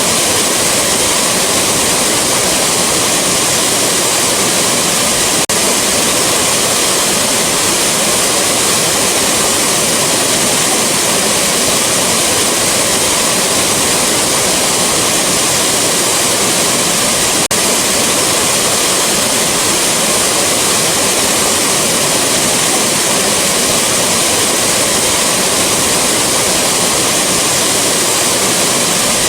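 Rushing waterfall: loud, steady noise of falling water with no let-up, broken only by two momentary dips in level, one about five seconds in and one a little past the middle.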